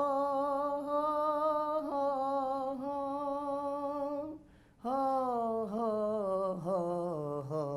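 A man singing unaccompanied on a wordless vowel in maqam Hijaz Kar: a long note held with vibrato, then after a short breath a descending, ornamented phrase that settles low, the maqam's closing cadence.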